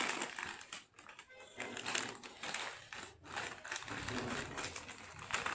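Plastic-foil crisp packets crinkling and rustling as they are handled and torn open.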